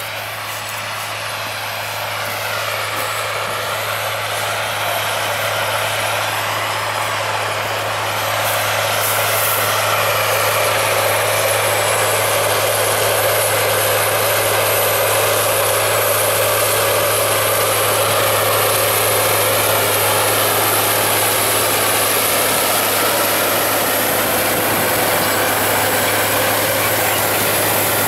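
Caterpillar Challenger MT865C tracked tractor's diesel engine running steadily under heavy load, pulling a Väderstad TopDown 900 disc-and-tine cultivator through stubble about 22 cm deep. It grows louder over the first ten seconds as the rig comes closer, then holds a steady drone together with the noise of the cultivator working the soil.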